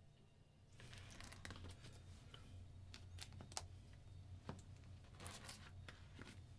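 Faint rustling and crinkling of clear plastic sleeve pages in a ring binder being turned by hand, starting about a second in, with a few sharp clicks.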